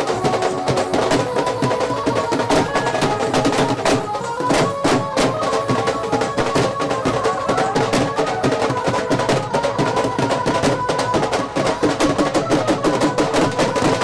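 Rajasthani folk music: large dhol drums beaten in a fast, dense rhythm, with a held melody line sounding above the drumming.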